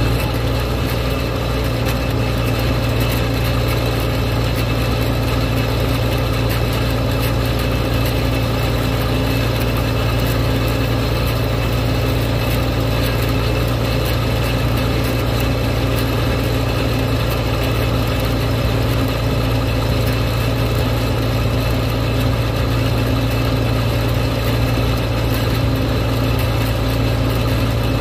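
Farm tractor engine running at a steady road speed with its exhaust stack right beside the microphone: a loud, constant low drone that keeps the same pace throughout.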